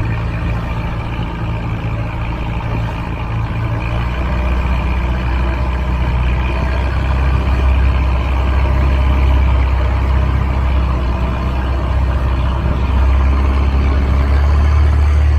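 Long-tail boat's engine, a second-hand automotive engine driving the long propeller shaft, running steadily under way. It grows louder and deeper about four seconds in.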